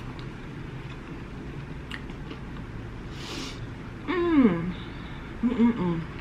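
A person chewing with faint wet mouth clicks, then a short sniff about three seconds in. This is followed by two closed-mouth 'mmm' hums, the first sliding down in pitch.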